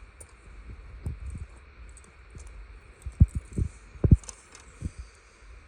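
Handling noise of LEGO pieces and minifigures being moved and set down: scattered soft clicks and knocks, with a few short low thumps about three to four seconds in.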